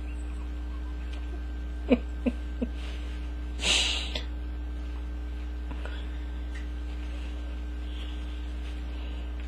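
Steady low electrical hum, broken about two seconds in by three quick soft sounds a third of a second apart, then a brief hissy burst a second later.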